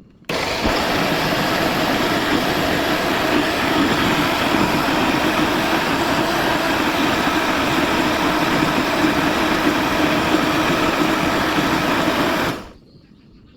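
Electric blender motor running steadily at one speed, switched on and off abruptly and lasting about twelve seconds.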